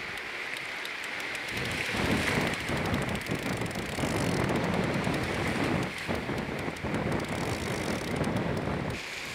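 Wind buffeting the microphone over breaking surf and fizzing foam, the rumble gusting harder about two seconds in.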